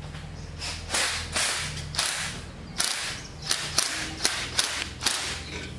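Footsteps scuffing across a concrete shop floor, a string of short hissy scuffs about every half second, over a steady low hum.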